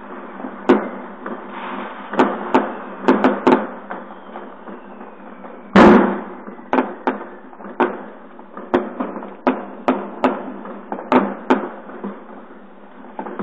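New Year's fireworks and firecrackers going off, many sharp bangs at irregular intervals over a steady background noise. The loudest blast comes about six seconds in.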